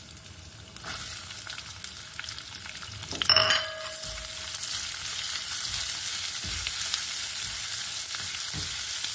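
Chopped onions frying in hot oil in a pan, sizzling and stirred with a spoon. About three seconds in a metal clink rings out briefly, and after it the sizzling gets louder and stays steady.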